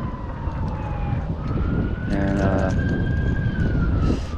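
An emergency vehicle's siren wailing, a single tone slowly falling, rising again and falling once more, over a steady low rumble of background noise.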